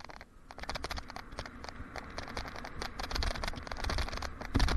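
Mountain bike rolling fast over a dirt trail: tyres on dirt with a constant rattle of rapid clicks over a low rumble, growing louder, and a heavy thump about four and a half seconds in.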